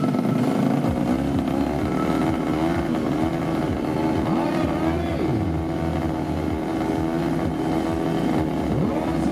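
Several tuned 130cc underbone motorcycle engines running, with repeated throttle blips that rise and fall in pitch over a steady running note.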